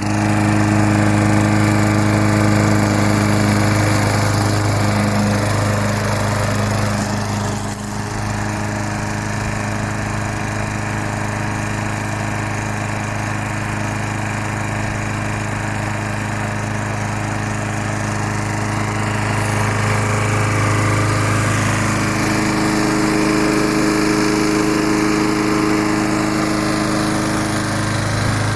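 Craftsman 6.75 hp walk-behind lawnmower engine, a no-prime, no-choke small four-stroke, running steadily just after being pull-started. Its note dips briefly about 8 seconds in and shifts slightly in tone later on.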